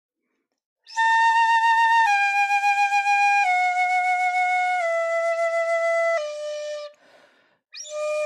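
Shinobue (Japanese transverse flute) played in the low octave: a slow descending scale of five held notes, each a clear step lower than the last, then a short breath and a new low note near the end.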